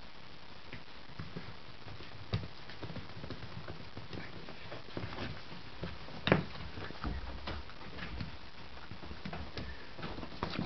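A puppy's paws and claws tapping and scrabbling on a hard floor as it gets up and clambers onto a large plush toy, with one louder knock about six seconds in.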